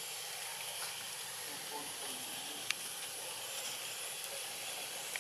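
Steady outdoor background hiss with a faint, high-pitched steady whine over it, and one sharp click a little under three seconds in.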